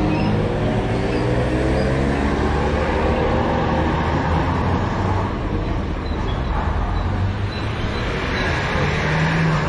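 Heavy army trucks' engines running as they drive past. The engine note bends in pitch over the first few seconds as a truck goes by.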